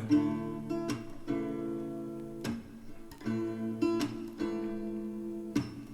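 Background music: acoustic guitar strumming sustained chords in an instrumental stretch of a pop song, with no singing.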